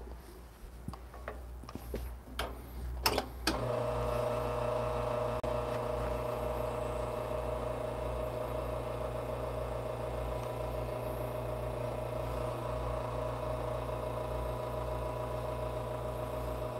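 A few clicks and knocks as the portafilter is handled at the espresso machine, then about three and a half seconds in the machine's pump starts and runs with a steady hum while an espresso shot is pulled.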